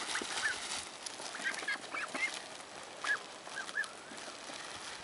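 A flock of young domestic ducks feeding and giving short calls now and then, several in quick succession about a second and a half to two seconds in and again after three seconds.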